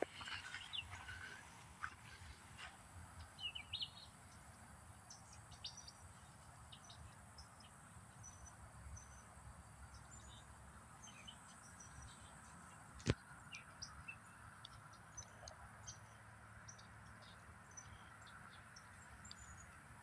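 Faint outdoor ambience: scattered short bird chirps and insect calls over a low steady hiss, with a single sharp click about two-thirds of the way through.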